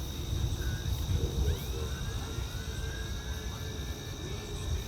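Crickets chirring steadily at a high pitch over a low rumble, with a faint gliding tone about a second and a half in.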